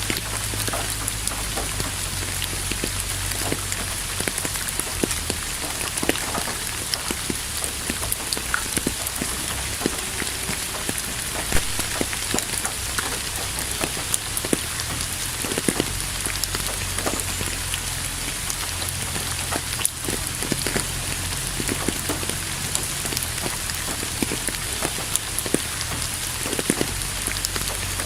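Steady rain falling, with a dense hiss and many individual drops ticking on a surface, over a low steady rumble.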